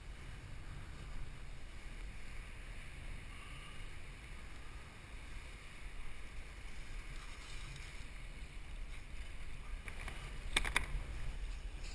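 Wind buffeting the microphone and water moving around a drifting kayak, a steady low rumble. A quick run of sharp clicks comes near the end.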